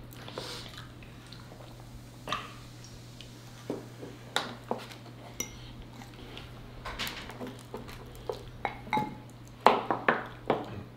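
Mealtime sounds up close: scattered sharp clicks and taps of a fork against a glass serving bowl and dishes, with wet chewing, over a steady low hum. The clicks come thicker and louder about ten seconds in.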